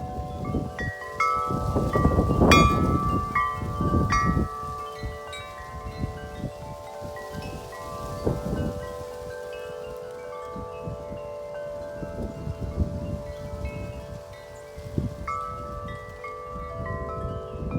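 Wind chimes ringing continuously in gusty wind, many overlapping tones struck again and again. Wind gusts buffet the microphone with a low rumble, heaviest a couple of seconds in.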